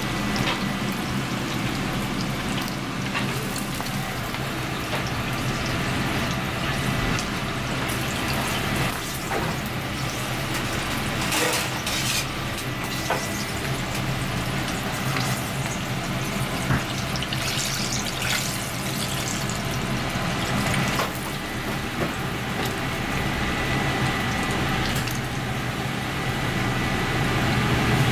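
Battered fish and a green pepper deep-frying in hot oil, a steady bubbling sizzle, over a constant low hum, with a few light clicks.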